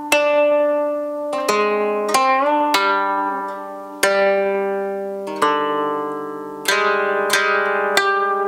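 Koto, the Japanese long zither, played slowly as single plucked notes that ring on, some of them bending upward in pitch just after the pluck.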